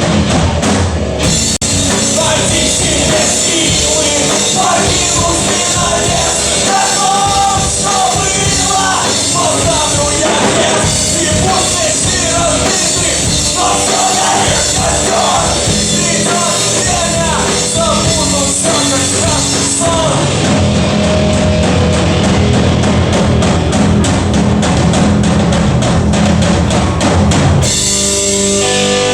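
Rock band playing loudly with drum kit, guitars and bass under a singer. The voice drops out about two-thirds of the way through, leaving the band holding steady chords, and the texture changes just before the end.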